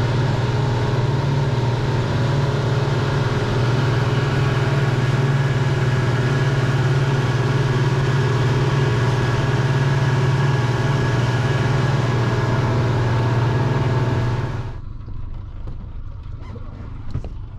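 Twin Mercury outboard motors running steadily at cruising speed, a loud even drone over rushing water. About fifteen seconds in it drops away to a much quieter background with a faint knock.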